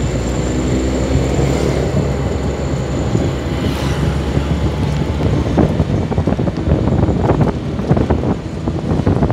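Motor vehicle engine running as it drives along, with wind noise on the microphone. From about halfway through, the wind buffets the microphone in many short gusts.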